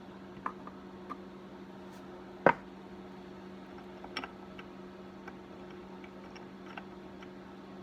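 Scattered light metal clicks and ticks from a hand thread tap and wrench being worked into a bar stud hole on a Stihl 026 chainsaw's case, with one sharper click about two and a half seconds in. A steady low hum runs underneath.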